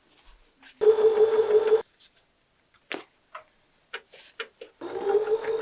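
Janome 7025 electric sewing machine stitching in two short runs of fast, even stitches, each about a second long, the second starting about five seconds in, while an elastic waistband is sewn into trousers. A few light clicks between the runs.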